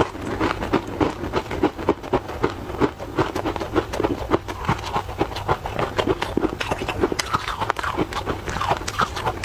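Close-miked chewing of a crispy, crumbly buckwheat snack: rapid, irregular crunches and wet mouth sounds, several a second.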